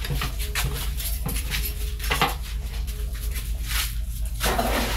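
Clatter of a cooking pot and utensils, a run of knocks and clinks, as peeled green bananas are put into a pot of boiling dumplings and yam, over a steady low hum.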